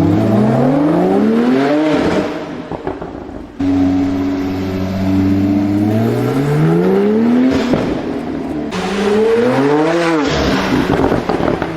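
Porsche sports car engine revved hard three times, the pitch climbing on each rev. Each time the throttle is closed, the exhaust breaks into a run of pops and crackles.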